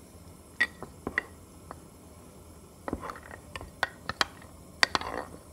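Spoon clinking against the inside of a glass while stirring starch into warm water: about a dozen sharp, irregular clinks, some in quick pairs, growing busier in the second half.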